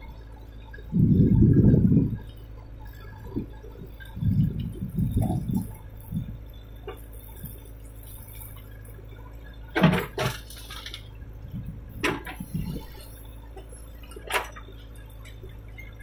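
JCB 3DX backhoe loader digging and tipping soil, its engine a steady low hum underneath. Muffled rumbles come early on, and a few sharp knocks follow near the two-thirds mark and near the end.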